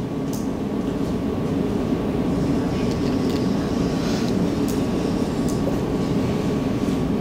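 A marker writing on a whiteboard, its strokes heard as a few faint short squeaks over a steady low background rumble in the room.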